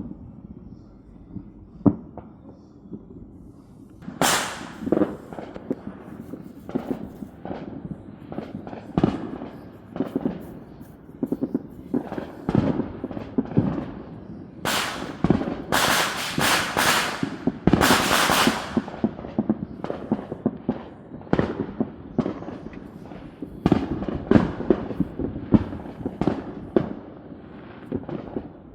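Consumer fireworks and firecrackers going off all around: an irregular run of sharp bangs and duller booms, with dense clusters of loud, crackling bursts about four seconds in and again about halfway through.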